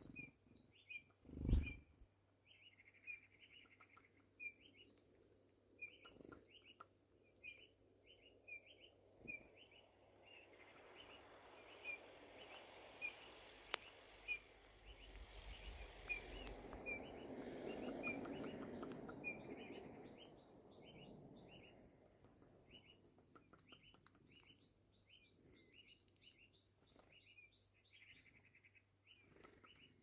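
A small bird chirping: short, high calls repeated about twice a second, with a single knock about a second and a half in. A soft rushing noise swells and fades through the middle.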